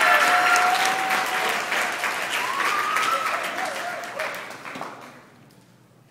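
Audience applauding, with a few voices calling out over the clapping; the applause dies away about five seconds in.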